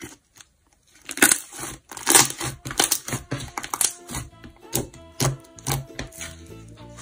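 Pink fluffy slime squeezed, folded and poked by hand, giving a quick run of sharp pops and crackles as trapped air is pressed out of it, starting about a second in.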